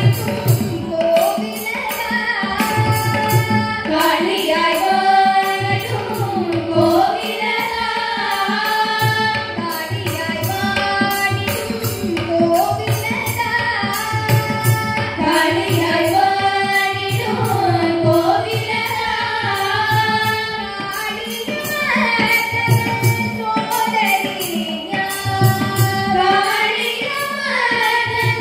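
A group of women singing a Carnatic devotional song together, their voices gliding and ornamenting the melody, accompanied by a mridangam beating a steady rhythm.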